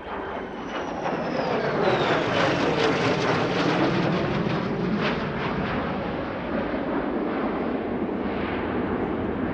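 Lockheed Martin F-35B Lightning II's single F135 jet engine at display power as the jet flies past in a banking turn. A high whine falls in pitch over the first two seconds while the roar builds, then it holds loud and steady.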